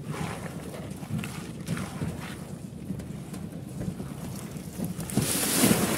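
Shovel scraping and knocking through wet concrete as it is spread over the steel rebar of a roof slab, with wind rumbling on the microphone. A louder rushing noise swells about five seconds in.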